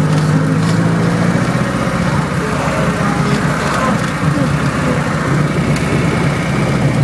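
Off-road vehicle's engine running steadily with a constant low hum while driving slowly over rough ground.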